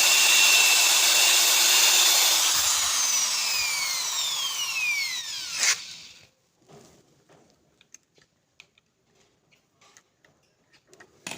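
Power drill running at steady speed while boring into a golf ball. About two seconds in it is let off and the motor winds down over a few seconds, falling in pitch, ending in a sharp click. Faint small clicks and taps follow.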